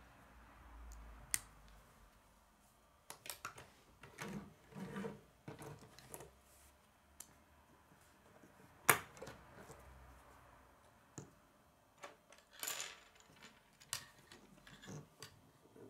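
K'nex plastic rods and connectors clicking and clattering as they are handled and snapped together on a wooden tabletop: irregular small clicks, with one sharp snap about nine seconds in.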